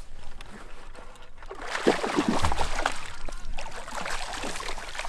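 Hooked fish thrashing at the water's surface near the bank, splashing irregularly; the splashing starts about two seconds in.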